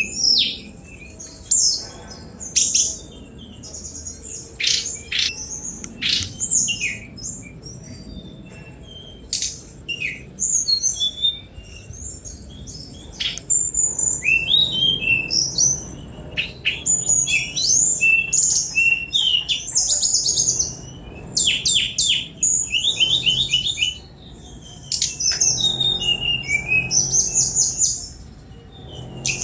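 Tledekan gunung, a jungle flycatcher, singing a fast, varied song of high-pitched chips, quick sweeping whistles and rapid trills, in phrases broken by short pauses.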